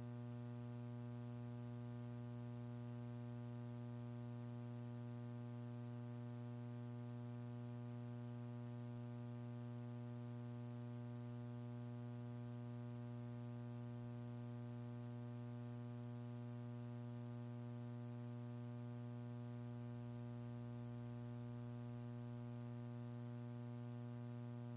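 Steady electrical mains hum with a stack of overtones on the audio feed, unchanging throughout, over a faint hiss.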